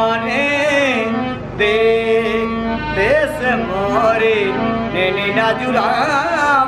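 Harmonium holding steady notes under a voice singing a winding, heavily ornamented folk melody, in phrases with short breaks between them.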